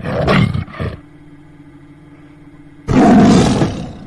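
Tiger roaring: a loud roar in the first second, then a faint low steady drone, then a second loud roar about three seconds in that fades away.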